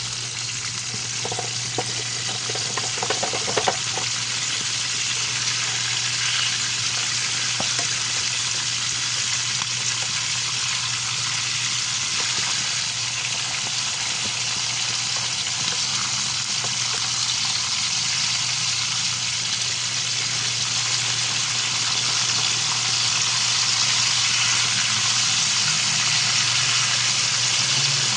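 Milkfish (bangus) frying in hot oil, a steady sizzle, with a few light clicks in the first few seconds.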